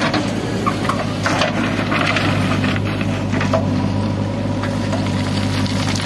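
JCB 3DX backhoe loader's diesel engine running steadily under load, with irregular bursts of scraping and crunching as its bucket works through stony soil.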